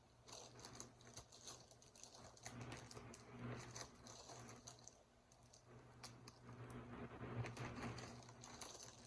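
Faint rustling, crinkling and clicking of a package being unwrapped and handled, over a low steady hum.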